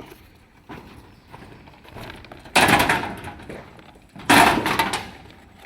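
Steel reinforcing bars clanging as they are handled and dropped onto the rebar, two loud impacts each followed by a ringing that dies away over about a second.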